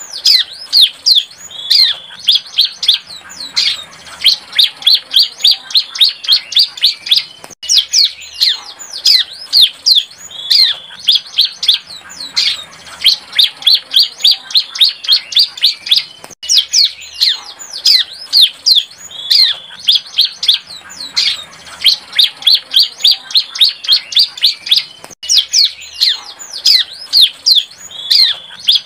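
Young bar-winged prinia (ciblek) singing its still-developing song: rapid runs of high, sharp, falling chirps, several a second, in phrases that repeat about every nine seconds with a brief break between them.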